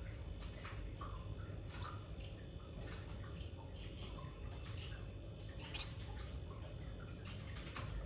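Faint, irregular small clicks and taps from a white finch moving and pecking about a nest bowl of fibres and egg food, over a steady low hum.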